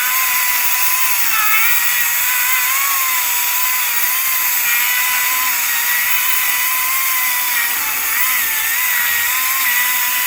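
Echo DCS-2500T 56-volt brushless electric chainsaw running flat out and cutting into wood: a steady high whine from the motor and chain that dips slightly in pitch now and then as the chain bites.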